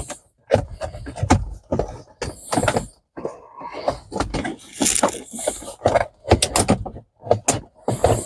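Plastic centre-console trim of a 2011 Kia Sorento being pulled loose: irregular creaks, scrapes and sharp clicks as the panel's retaining clips give way.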